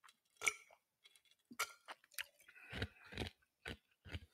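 A person drinking water close to the microphone: a run of irregular gulps, swallows and wet mouth clicks, soothing a dry throat.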